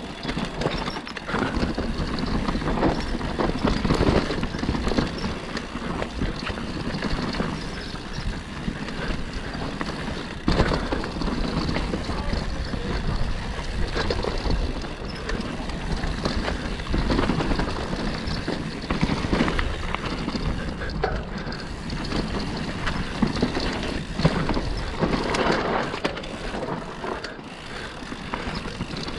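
Mountain bike ridden down a rough trail: tyres rumbling over dirt and roots, with the bike rattling and knocking continually over bumps.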